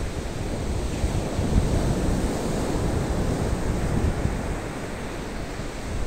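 Surf breaking steadily on a sandy beach in a rough sea, with wind buffeting the microphone.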